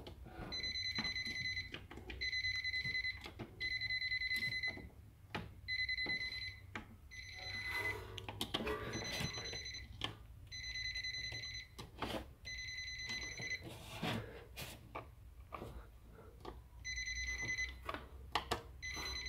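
Electrical tester beeping as its probe touches live breaker terminals: a steady high electronic beep of about a second, repeated about ten times with short gaps, each beep signalling that a phase is present. Light clicks and scrapes of the probe tip on the terminals fall between the beeps.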